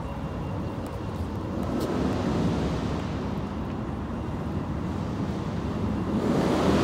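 City street traffic going by. The noise swells about two seconds in and grows louder again near the end.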